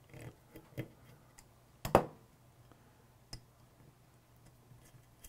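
Small metallic clicks and ticks as the screw of a Springfield XDM's adjustable rear sight is turned out with a slotted screwdriver, with one sharper click about two seconds in.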